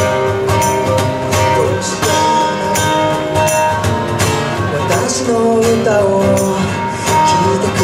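Live band playing the instrumental intro of a song: acoustic guitar over a steady percussion beat, with held melodic notes above.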